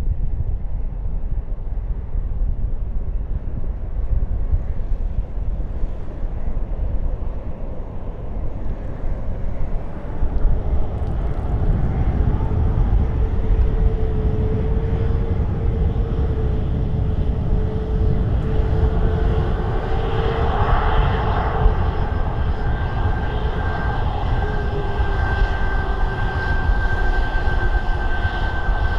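Jet airliner's engines passing: a steady whine that builds through the middle, then a higher whistle that comes in about two-thirds of the way through and holds. A low rumble of wind on the microphone runs underneath.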